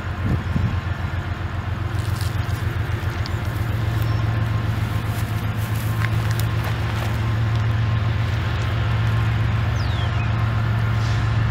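Large diesel engine running steadily, with a deep, even hum and a fast low throb.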